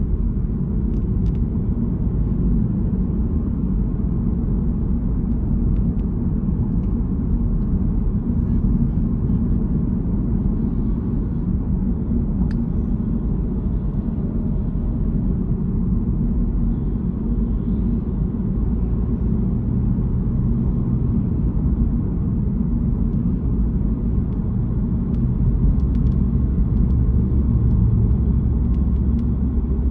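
A car driving, its engine and the road making a steady low rumble.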